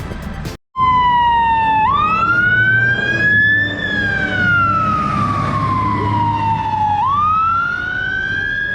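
Emergency vehicle siren on a slow wail: a single tone that climbs sharply, slides slowly back down and climbs again, over a low rumble of traffic.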